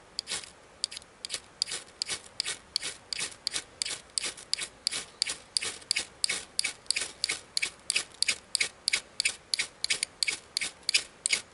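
A steel 1-inch spade bit scraped rapidly and repeatedly down an oversized ferrocerium rod, about four rasping strikes a second, throwing a spark shower to light fire paste.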